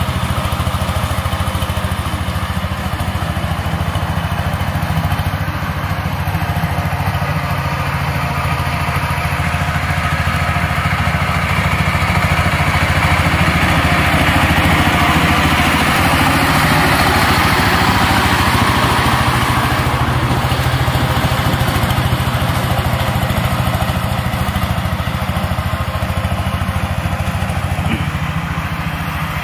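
Walk-behind power tiller's single-cylinder diesel engine running steadily under load while its rotary tiller works the soil. It grows louder in the middle as the machine comes close, then eases off.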